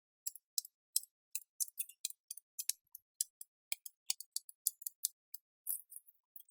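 A rapid, irregular run of light, sharp clicks, about three to four a second.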